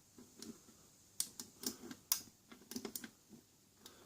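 Irregular light clicks and taps of hands and tools working the wafer lock of a small metal petty cash drawer.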